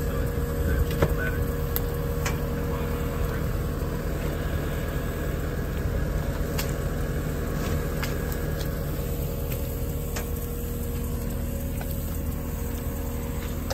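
Kubota skid steer's diesel engine running steadily while holding a stuck tractor's tire up out of the mud, with a few scattered knocks.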